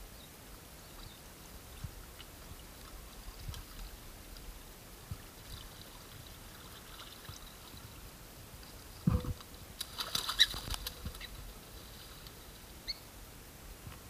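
Shallow water trickling faintly among shoreline rocks, with scattered small knocks, and a short louder flurry of knocks and scuffs about nine to eleven seconds in.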